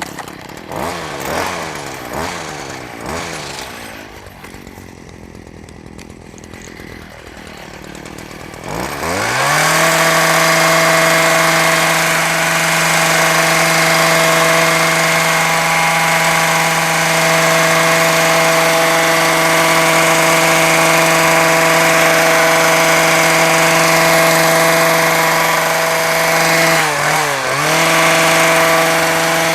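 A small gas engine on a grass-cutting tool, low and slowing for the first several seconds. About nine seconds in it revs up and holds a steady high-speed whine at full throttle, easing off and coming straight back up briefly near the end.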